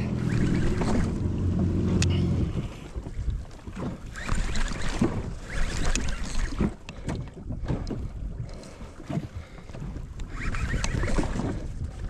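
Jet ski engine idling with a steady low hum, cut off about two and a half seconds in. Wind buffeting the microphone and water sloshing against the hull follow, with a few light knocks.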